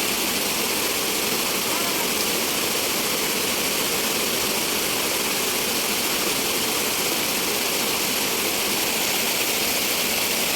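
Steady rushing of falling water: an even, unbroken noise that holds one level throughout.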